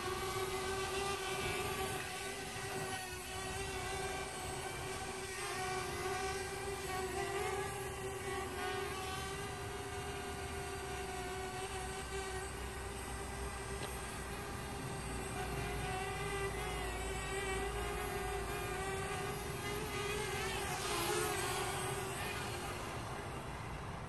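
Parrot Bebop quadcopter's motors and propellers whining steadily as it flies low. The pitch wavers slightly and dips briefly about three-quarters of the way through.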